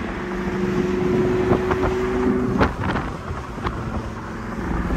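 A motor running under heavy wind noise on the microphone. Its steady hum fades out about halfway through, and there are a few short knocks.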